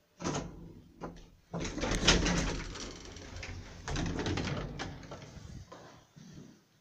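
Old KONE lift's sliding car doors opening with a sudden clunk, followed by several seconds of clattering, rattling door and handling noise, loudest in the middle and dying away near the end.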